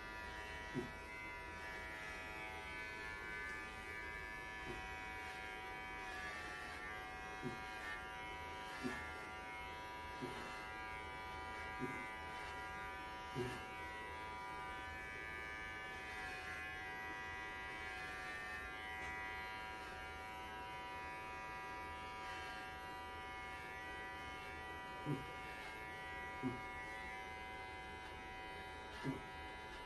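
Electric pet hair clippers running with a steady buzz, shaving a Welsh Corgi's coat down short. Short knocks come now and then, about ten in all, bunched in the first half and near the end.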